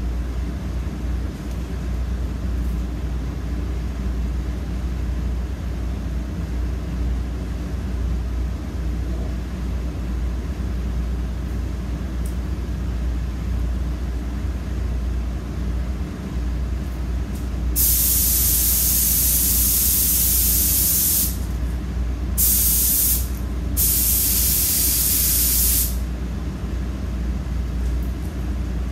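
Air-fed paint spray gun hissing in three bursts as the trigger is pulled: one of about three and a half seconds, a short one, then one of about two seconds, all over a steady low machine hum.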